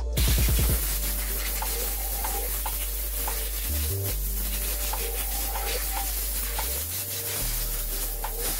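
Compressed air from a blow gun on a compressor hose hissing steadily as it blasts a two-stroke engine part clean, starting suddenly. Background music with a bass line plays underneath.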